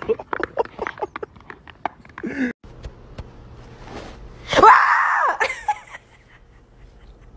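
A quick run of taps, then, about halfway through, a pit bull-type dog gives one short, loud yowl that rises and falls in pitch.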